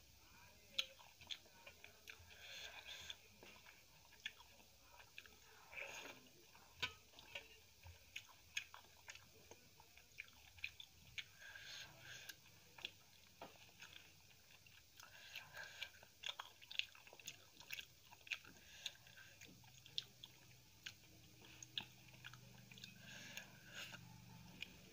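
Close-miked eating sounds: soft chewing with many short, sharp wet clicks, as the last of the curry and rice is gathered by hand from a steel plate and eaten.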